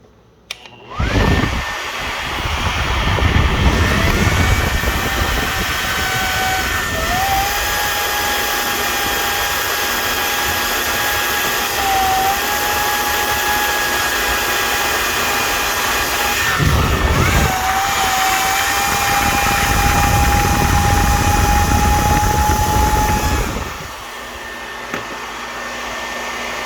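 Small electric fan with a blower wheel, like a microwave's, switched on about a second in and running with a steady high whine over rushing air. It breaks off briefly about two-thirds of the way through, comes back, then drops to a lower level near the end.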